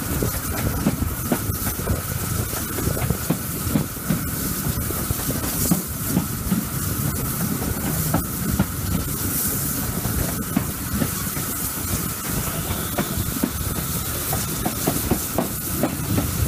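GWR Small Prairie tank steam locomotive no. 5542 running along the line: wheels clicking irregularly over the track within a steady rushing noise, with a faint steady tone through it.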